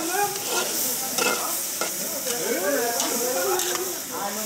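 Fresh squid stir-frying in a large wok: a steady sizzle, with repeated clacks and scrapes of a metal ladle and spatula turning the pieces against the wok.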